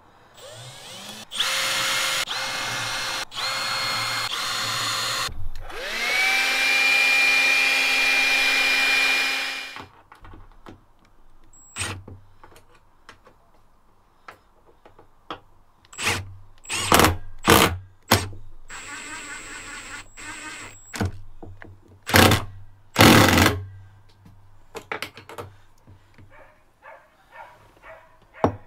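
Cordless drill running in two long runs, the second spinning up to a steady whine, as it bores holes through a boat's cockpit moulding. Later come several short bursts as the drill drives in the fixings of a new winch base.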